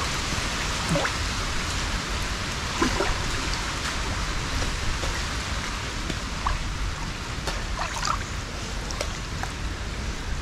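Water running and trickling steadily through a canal culvert, with a few small splashes scattered through it.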